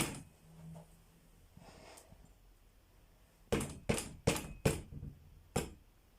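A run of sharp knocks: four in quick succession about three and a half seconds in, then one more a second later.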